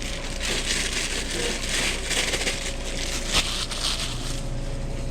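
Chicken karaage frying in hot oil, a dense sizzle and crackle, with a sharp knock about three and a half seconds in and a steady hum underneath.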